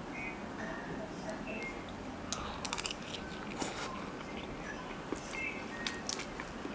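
A metal spoon clicking against a plastic food container as someone eats, with quiet chewing. A quick run of clicks comes about two and a half seconds in, then single clicks a second later and near the end.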